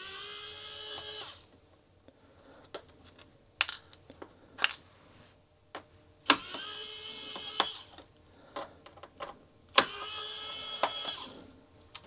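Small electric screwdriver whirring in three short runs of about a second and a half each as it backs out small screws, with light clicks and taps between the runs.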